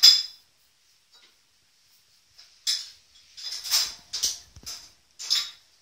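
Young puppies, about three weeks old, giving a series of short, high-pitched squeaks at irregular intervals.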